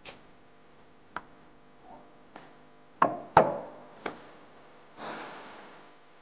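High-heeled shoes and a wooden shoe cabinet handled: a few light clicks, then two loud knocks in quick succession about three seconds in and another just after, followed by a soft hiss that fades over about a second.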